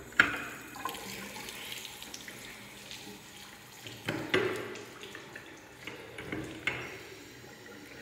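Push-button metering faucet on a porcelain restroom sink, pressed three times. Each press gives a sharp knock and a fresh gush of water running into the basin.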